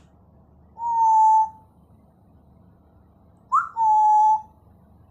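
African grey parrot whistling: two steady, level whistles of under a second each, the second one led in by a short rising chirp.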